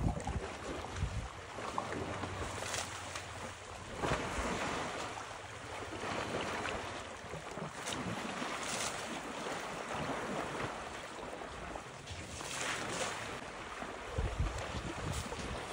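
Water splashing and sloshing as an African elephant rolls and thrashes in a muddy waterhole, with several bigger splashes along the way. Wind buffets the microphone.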